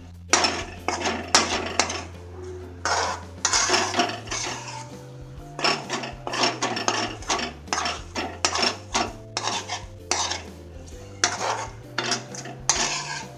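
A spoon stirring thick prawn curry in a pan, scraping and clinking against the pan in irregular strokes about one to two a second.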